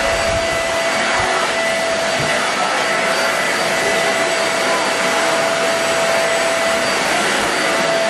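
Deerma DX700 corded handheld vacuum cleaner running steadily, a constant whine over its rushing airflow, as its floor brush is pushed over the floor.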